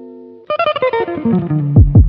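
Background music: a held chord fades out, then about half a second in a quick run of plucked notes steps downward, and near the end deep drum beats come in.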